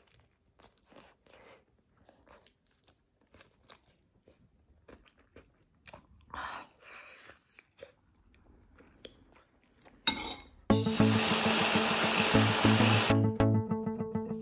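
Faint eating sounds, chewing and a metal spoon, then about ten seconds in an electric hand blender runs loudly for about two and a half seconds and stops.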